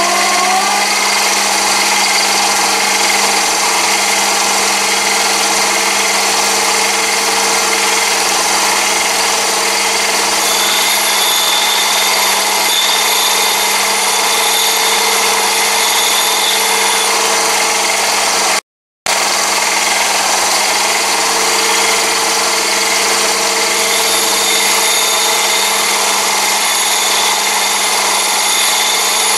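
Mini lathe spinning a diamond lapping wheel. The motor winds up with a short rising whine, then runs steadily with a hum. While a brazed carbide tool tip is held against the face of the diamond lap, a thin high whine rides on top. The sound cuts out for a moment about two-thirds of the way through.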